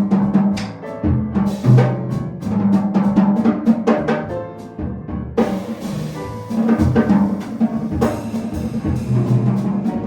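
Jazz piano trio playing: piano, bass and drum kit together, with a walking low bass line under the piano and busy drum hits. From about halfway, cymbals ring out over the top.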